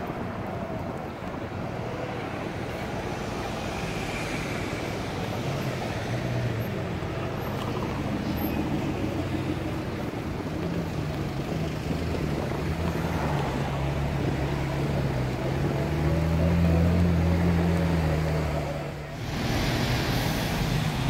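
Road traffic in slow city traffic: car engines running with a low, wavering engine drone that grows louder a few seconds before the end, dips suddenly, then returns as steady traffic noise.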